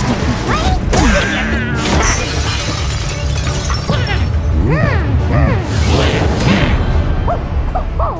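Cartoon background music under the characters' wordless vocal sounds: squeaks, grunts and giggles that slide up and down in pitch, with a few cartoon sound effects.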